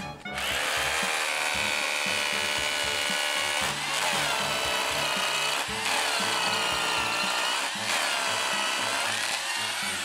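Corded electric drill boring an anchor hole into concrete, its motor whine steady but sagging in pitch and recovering several times as the bit loads up.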